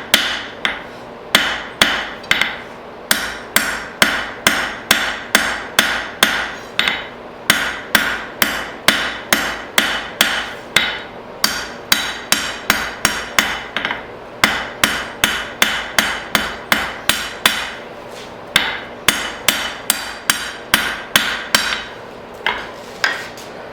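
Blacksmith's hammer striking hot steel on an anvil, about three ringing blows a second in runs with short pauses, as square bar stock is drawn out and rounded into a long taper.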